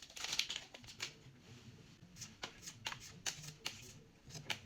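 Pokémon trading cards being handled: a brief rustle, then the cards are flicked through one by one with short, crisp snaps about twice a second.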